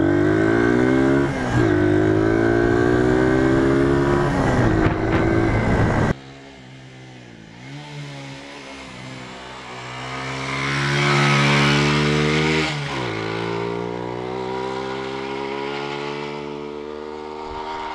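A 125 cc single-cylinder CG125-type motorcycle engine under way, heard close up. It accelerates with its pitch climbing, dipping briefly between gears. About six seconds in, the sound cuts to another such motorcycle approaching. It grows louder and rises in pitch, then drops in pitch as it passes.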